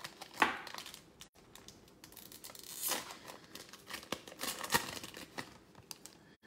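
Trading cards being slid against one another and handled, heard as several short papery scrapes and rustles a second or two apart, with small clicks between them.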